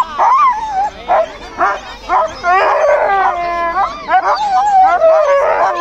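Harnessed sled dogs yelping and whining, then one long wavering howl that falls in pitch over the second half: the excited noise of sled dogs held back at the start, eager to run.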